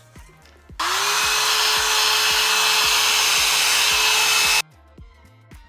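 Handheld hair dryer switched on, its motor spinning up quickly then blowing steadily for about four seconds before stopping suddenly, as used to set the lace of a frontal wig after spraying it.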